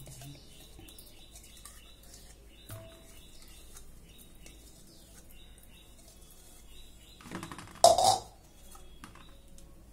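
Quiet hand work scraping ground paste out of a mixer-grinder jar, over faint, repeated high-pitched chirping. About seven and a half seconds in, a short, loud clatter of the jar and utensils against the steel bowl.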